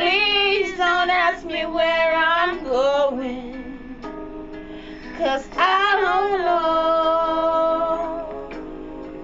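A song: a woman singing drawn-out, slightly wavering notes over a soft instrumental backing, with a long note held through the middle that eases off near the end.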